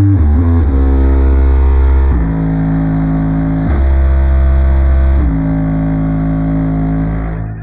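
Bass-heavy funk music played loud through a Fiat Palio's aftermarket car sound system with two 10-inch subwoofers, its deep bass notes changing every second or two. It fades and drops out near the end.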